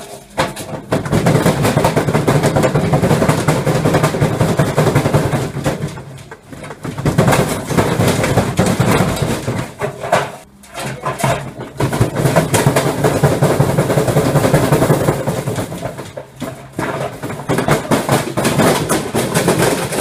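Front-loading washing machine running a fast spin cycle while standing on a trampoline, its unbalanced drum making the whole machine hop on the mat: a loud, rapid clattering and banging that eases off briefly three times.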